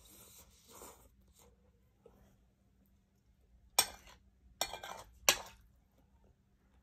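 Cutlery clinking and scraping against a plate while eating: a soft scrape in the first second, then three sharp clinks between about four and five and a half seconds in.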